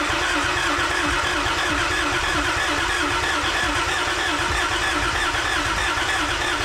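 Rebuilt Toyota 1JZ inline-six being turned over on its starter motor with a steady, even cranking rhythm, to build oil pressure through the engine and turbo; it stops abruptly near the end.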